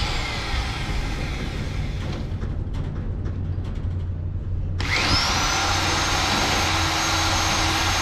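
Handheld electric drill running at high speed: one run stops about two seconds in, and a second starts about five seconds in, spinning up quickly and then holding a steady whine. A steady low hum lies underneath.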